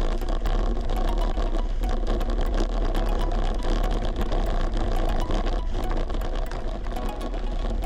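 Wind rumbling steadily on an unshielded camera microphone during a bicycle ride, with background music and frequent short clicks over it.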